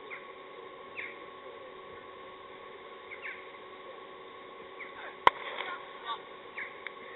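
Birds chirping in short falling calls over a steady faint hum; about five seconds in, a single sharp crack of a cricket bat striking the ball.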